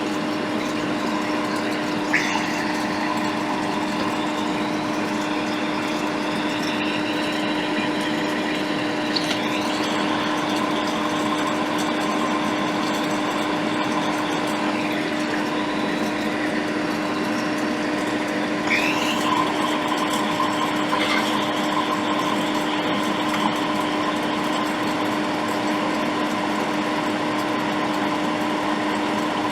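Steady hum of a fan or small motor running, with a constant tone, and a few faint short squeaks about 2, 9 and 19 seconds in.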